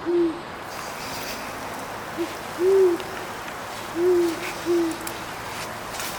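An owl hooting: about five short, arched hoots, loosely paired about two-thirds of a second apart, over a steady background hiss.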